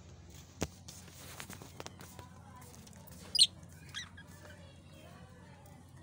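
Caged budgerigars chirping, with one sharp, loud squawk about three and a half seconds in and a shorter call just after.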